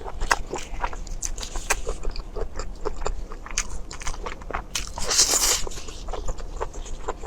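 Close-miked eating sounds: chewing with wet mouth clicks and smacks, scattered irregularly, and a louder noisy burst about five seconds in.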